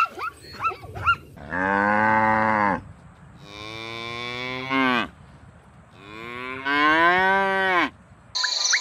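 Cattle mooing: three long moos, each one to two seconds, with short gaps between them.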